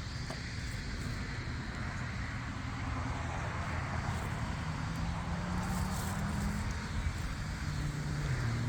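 Low, steady drone of a distant engine, its pitch rising a little about halfway through.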